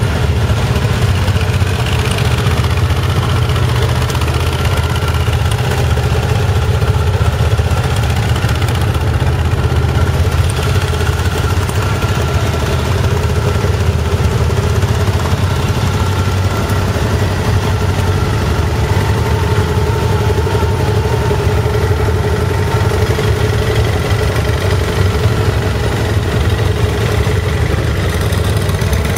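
Motorcycle engine idling steadily, a low even drone.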